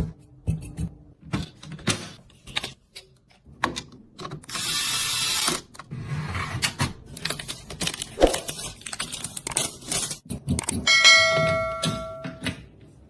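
Hard computer parts being handled and fitted during a PC build: a run of clicks, taps and rattles, with a brief hiss near the middle and a short ringing tone near the end.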